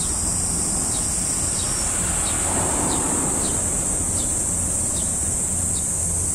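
Steady high-pitched insect buzzing, with a short falling chirp repeated about every three-quarters of a second. Underneath is a low steady rumble, and a brief swell of rushing noise comes about halfway through.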